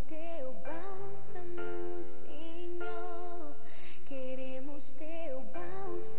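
A woman singing a Brazilian gospel song into a handheld microphone, the melody gliding between long held notes, over a steady instrumental accompaniment.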